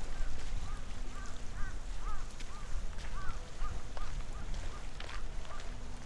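A bird giving a rapid series of short, arched honking calls, about two a second, over a low rumble.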